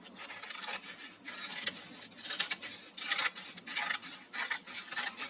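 Scissors cutting paper in a run of short, irregular rasping strokes, trimming the edges of a drawing.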